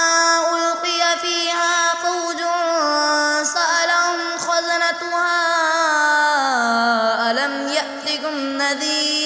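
A single voice chanting Quranic recitation in melodic tajweed style, with long drawn-out notes that slide in pitch. One phrase falls slowly about two-thirds of the way through.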